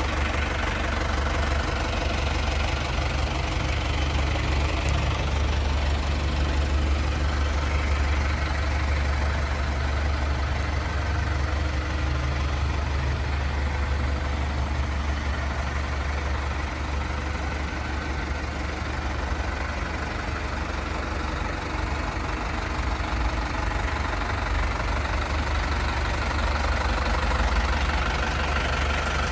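Isuzu Elf dump truck's 3.7-litre diesel engine idling steadily.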